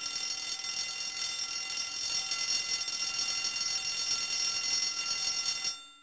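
Bell alarm clock ringing without a break, loud and bright; it stops abruptly near the end.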